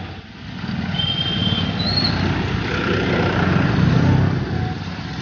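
Busy street traffic with motorcycle engines running past close by. The rumble swells about three to four seconds in, and two short high beeps sound about a second and two seconds in.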